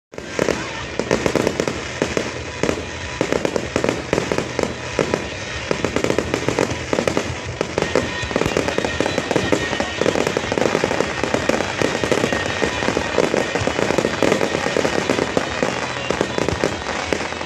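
Fireworks display in a rapid, continuous barrage: many overlapping bursts and crackling pops with no pause.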